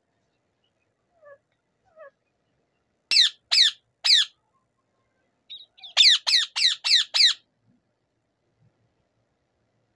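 Rose-ringed parakeet screeching: two faint short notes, then three loud screeches about three seconds in, and a quick run of about six more about six seconds in.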